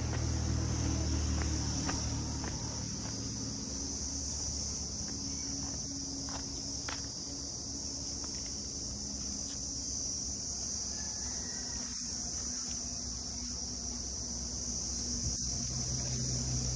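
Insects chirring outdoors in a steady high-pitched drone, with a low rumble underneath that is stronger at the start and near the end.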